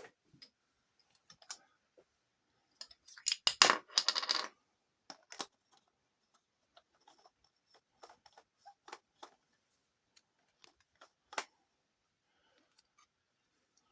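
Small metal parts and tools being handled at a workbench: scattered light clinks and knocks, with a loud jumble of rattling clinks from about three seconds in to about four and a half.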